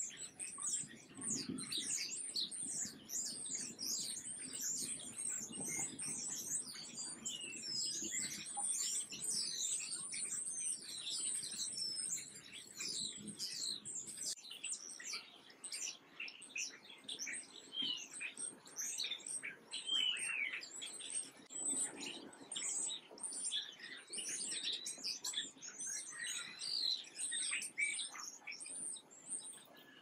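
A flock of small songbirds chirping over one another: a dense, continuous twittering of short, high, falling chirps that grows a little sparser in the second half.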